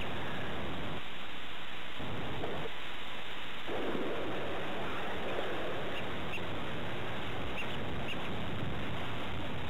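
Steady rushing noise with a few faint, short high peeps.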